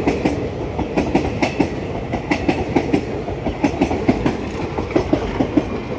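Passenger coaches of an Indian Railways express running through a station at speed. The wheels clatter over rail joints and points in a quick, irregular run of knocks over a steady rumble.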